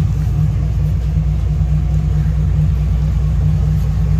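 Chevy Silverado stepside pickup's engine idling, a steady low rumble.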